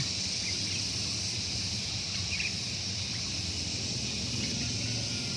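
Steady high-pitched insect drone, like crickets chirring, over a faint low hum.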